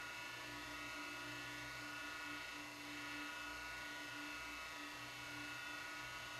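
Steady electrical hum and hiss with several thin, high whining tones and a fainter wavering tone below them. No footsteps or knocks stand out.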